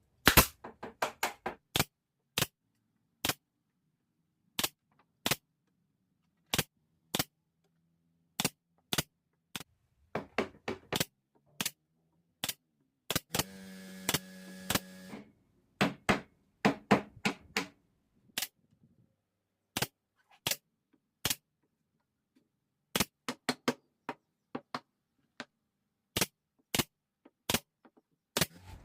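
A series of sharp, irregular knocks or clicks, a few dozen in all, some in quick clusters, with a short buzzing hum about halfway through.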